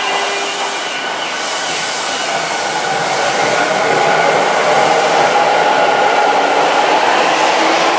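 Tokyu 5000 series electric train pulling into the station alongside the platform: a steady rush of wheels on rail with several steady whining tones from its traction equipment, growing louder about four seconds in as the cars pass close by.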